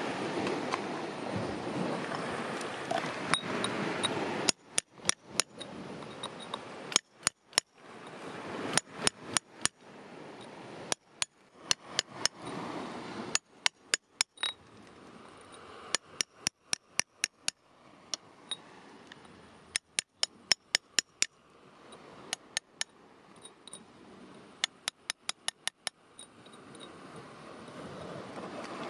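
A hammer tapping a steel chisel to chip rock away from a pocket of quartz crystals. The light, ringing clinks come in quick runs of several strikes with short pauses between, starting about four seconds in.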